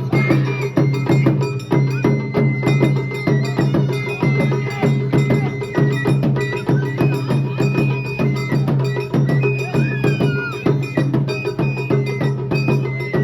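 Japanese festival music: a high flute-like melody over fast, even percussion with a metallic clanking beat.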